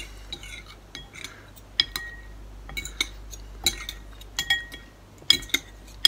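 Metal cutlery clinking against a bowl of instant ramen while eating: about a dozen sharp, irregular clinks, several with a brief ring.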